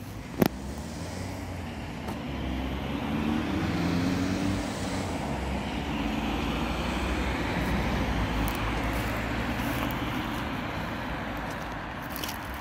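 Road traffic passing close by on a multi-lane highway: steady tyre and engine noise of passing cars, swelling and easing as vehicles go by. A single sharp knock about half a second in.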